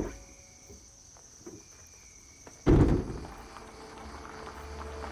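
Two heavy thuds: a sharp one at the very start, then a deeper, louder one about two and a half seconds later. After the second, a hiss and a low rumble slowly build.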